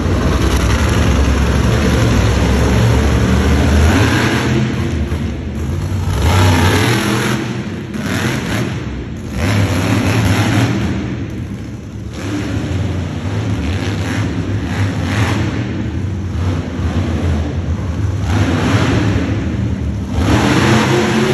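Monster truck engine revving hard, rising and falling in repeated surges of throttle as the truck drives and jumps on the dirt.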